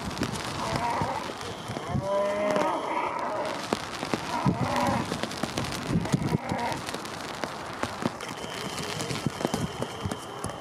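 Heck cattle lowing, several drawn-out calls over the first six or so seconds, which the uploader calls the roar of hunger. A steady crackling patter runs underneath.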